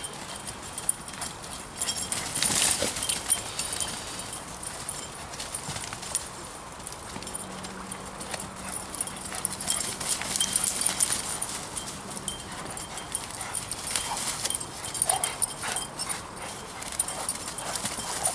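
Two dogs running and scuffling through dry fallen leaves: an irregular crunching and rustling of paws in the leaf litter.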